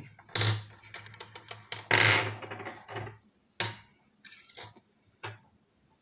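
Small metal parts of a disassembled Miwa/Anker 3800 lock cylinder clinking and clattering as they are handled and set down: a string of sharp clicks and short rattles, the loudest about two seconds in.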